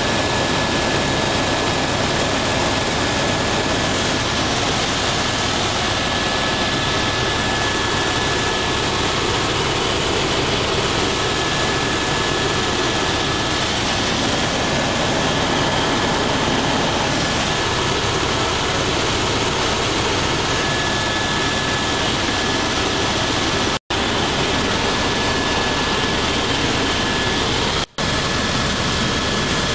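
Helicopter cabin noise in flight: the steady, dense sound of the turbine and rotors with a thin, high, steady whine on top. The sound cuts out for an instant twice near the end.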